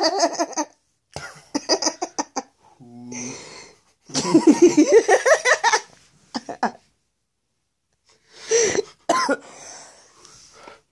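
A man laughing hard in several bouts, breaking into coughs and gasping breaths between them.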